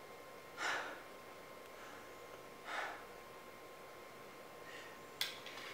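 Two heavy breaths, short noisy sighs or gasps about two seconds apart, over faint room tone with a steady hum; a sharp click near the end.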